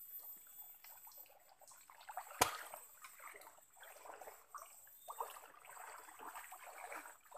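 Hands groping and sloshing in shallow muddy stream water, with light trickling and scraping, and one sharp click about two and a half seconds in.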